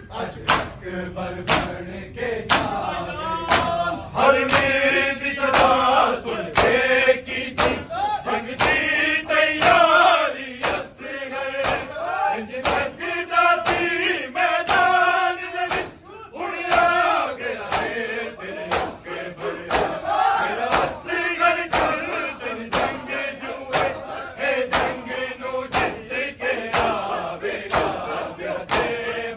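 A crowd of men chanting a noha together, kept in time by a steady beat of open-handed chest-beating (matam) slaps, a little under two a second.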